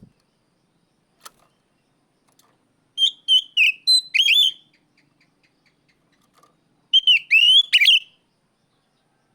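Oriental magpie-robin (kacer) giving loud whistled calls in two short bursts, one about three seconds in and one near the end. Each burst is a quick run of sliding, whistled notes.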